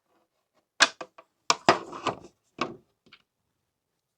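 A run of sharp clicks and taps from small metal hardware: bolts, washers and a screwdriver handled while the bolts are fastened into the ceiling fan's mounting bracket. The loudest ones come about a second in.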